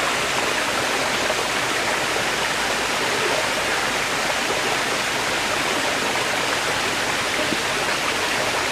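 A steady, even rushing noise with no calls in it, like running water.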